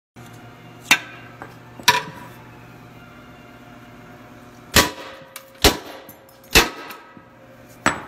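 A hammer striking a piston six times, driving it down into an engine block's cylinder bore. Each blow is a sharp metallic clang with a brief ring: two about a second apart, then after a pause four more, roughly one a second.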